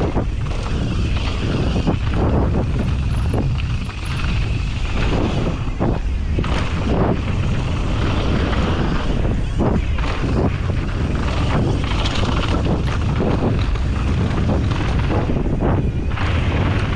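Wind buffeting the microphone during a fast mountain bike descent, with the tyres rolling over dirt and rocks and the bike rattling and knocking over bumps, many short knocks throughout.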